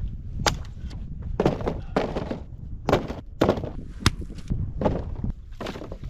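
Firewood being gathered: about a dozen sharp cracks and knocks of dry wood snapping and striking wood, irregular, roughly two a second.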